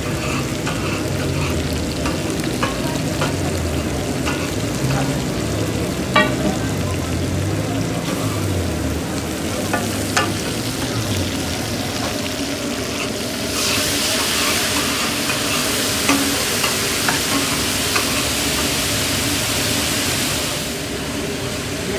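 Chicken frying on a large flat steel tawa griddle, with a metal spatula scraping and clicking against the griddle. About two-thirds of the way through, liquid hitting the hot griddle sends up a loud steaming sizzle that lasts about seven seconds and then dies down, over a low background rumble.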